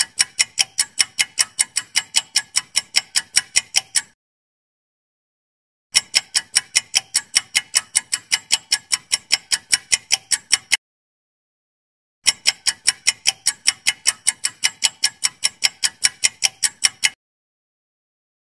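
Countdown timer sound effect of fast, evenly spaced clock ticks, about five a second, in runs of about five seconds each broken by silent gaps of one to two seconds.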